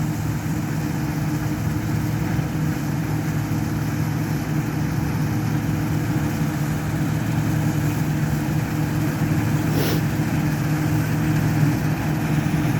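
Combine harvester running as it harvests wheat: a steady engine and machinery drone. A brief click comes near the end.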